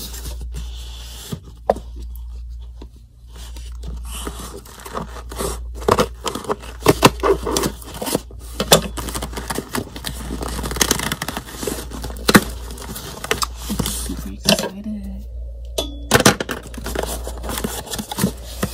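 Cardboard shipping box being opened by hand: packing tape peeling and tearing off and the cardboard flaps rustling, with many sharp irregular crackles, busiest from about four seconds in.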